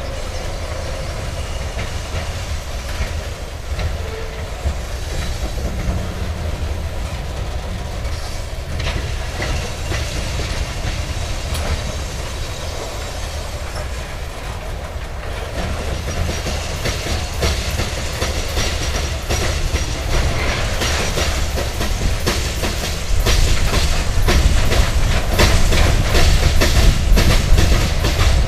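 Loaded covered hopper cars of a freight grain train rolling past, their wheels clicking over the rail joints over a steady rumble. The clicking gets brighter about halfway through and louder and sharper near the end.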